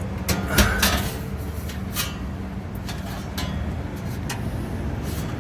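Steady low electrical hum of a running rooftop HVAC package unit, with a few sharp metallic clicks and knocks from handling its panels or parts.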